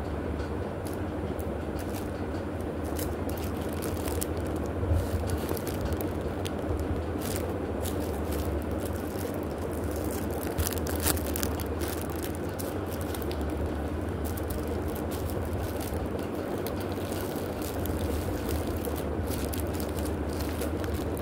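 Plastic wrapping and paper decorations being handled, with scattered short crinkles and crackles over a steady low hum.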